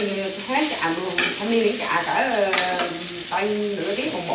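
Rice frying in a pan, sizzling as it is stirred and scraped with a utensil.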